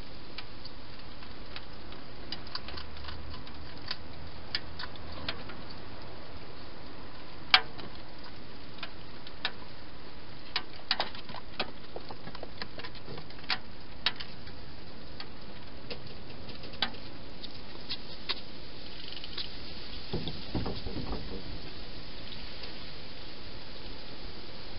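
A hedgehog feeding inside a clear plastic feeding box: irregular sharp clicks and taps as it eats and moves about among the dishes, over a steady hiss.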